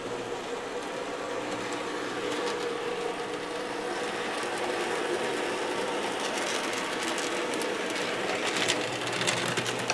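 Motor of an N gauge Conrail diesel locomotive model running steadily as it travels around the layout, its wheels rolling on the track, with a few sharp clicks near the end.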